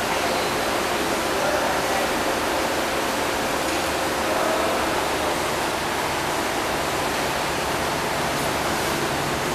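Steady rushing, water-like noise of a marine aquarium's pumps and filtration circulating water, with a faint steady hum underneath.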